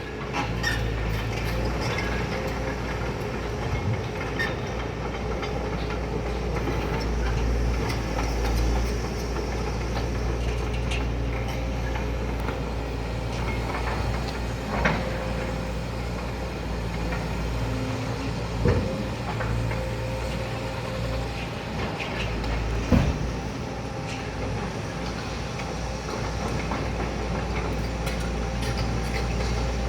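A heavy engine running steadily with a low rumble, broken by three sharp knocks.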